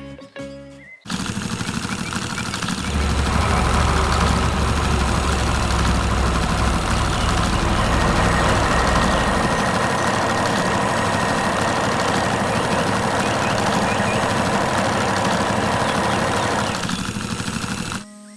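Heavy diesel machinery running at a steady, loud level, starting abruptly about a second in with a deep rumble through the middle, then cutting off just before the end.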